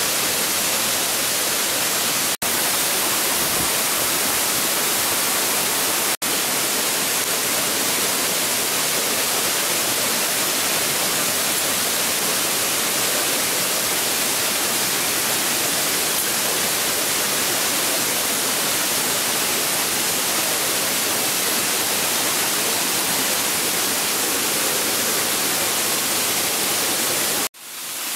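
Waterfall rushing: a steady, even sound of falling water, broken by brief dropouts about two seconds in, about six seconds in and near the end.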